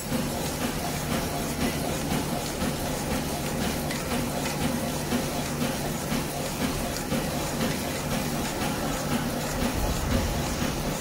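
Automatic knife-and-fork feeder packing machine running: a steady machine hum with a regular mechanical clacking from its feeding and wrapping motion.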